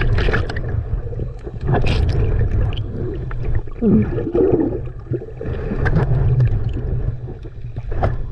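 Water gurgling and sloshing over a camera microphone held at and below the sea surface while swimming, heard as a muffled low rumble with irregular splashes and bubbling.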